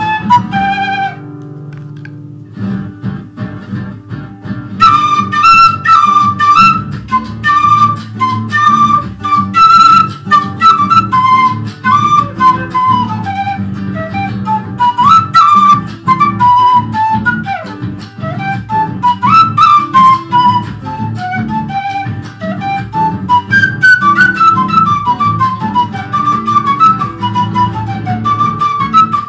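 A PVC quena (Andean notched flute) playing a stepping melody over a strummed guitar accompaniment, the flute breaking off for a few seconds near the start and then carrying on.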